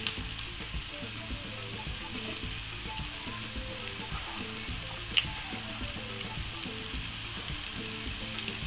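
Macaroni, egg and grated carrot sizzling in a nonstick frying pan while being stirred, with small scraping ticks and one sharp tap about five seconds in.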